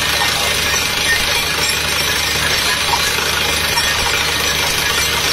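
Truck-mounted DTH water well drilling rig running: a steady low engine drone under a continuous loud rush of noise, with no pauses.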